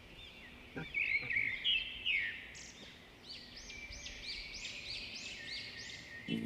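Small birds chirping and singing: short, high, arched notes, running into a quick repeated series of about three notes a second in the second half.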